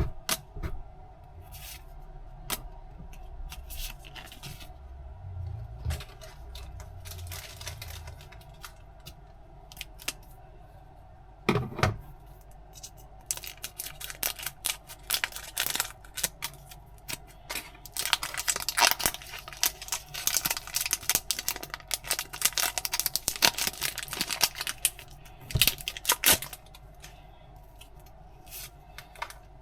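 Packaging being torn open and handled, with scattered clicks and rustling, and a longer stretch of dense tearing and crinkling in the second half.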